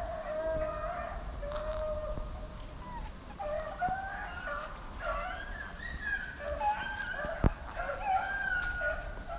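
A pack of rabbit hounds baying, several dogs' drawn-out, wavering calls overlapping. A single sharp crack about seven and a half seconds in.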